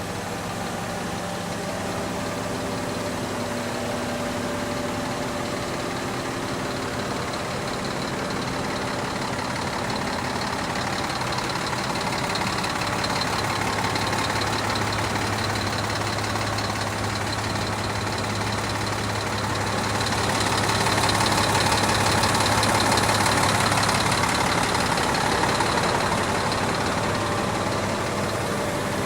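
Concrete pump truck's engine running steadily, growing louder with a rushing noise for several seconds about two-thirds of the way through.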